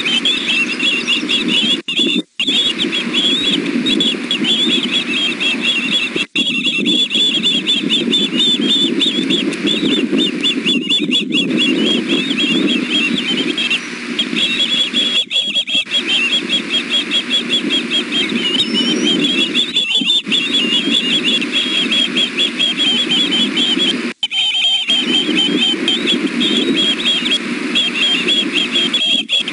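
Osprey chicks food calling: a continuous run of rapid, high whistled chirps over a steady low rush. The sound cuts out completely for a moment a few times.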